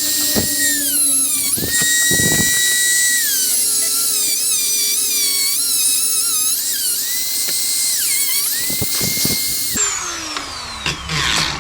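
Small high-speed power tool cutting into plastic, its whine sagging in pitch again and again as it bogs under load and then picking back up. Near the end it is switched off and spins down with a falling whine.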